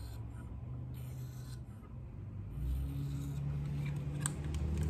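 Light stropping strokes of a 300-grit diamond plate along a knife edge in a guided sharpener: a faint scraping hiss, clearest about a second in, to knock off and clean up the burr at the apex. Later a low steady hum comes in, and a few sharp clicks sound near the end as the sharpener's rod and knife clamp are handled.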